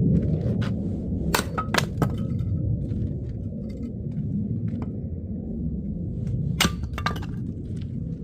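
Oak firewood being broken up: sharp cracks and knocks with a short metallic clink, three about a second and a half in and three more near the end, over a steady low rumble.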